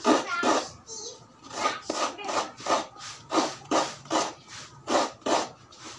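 Coconut meat being grated by hand: a dry rasping scrape with each stroke, the strokes coming in uneven runs of about two to three a second.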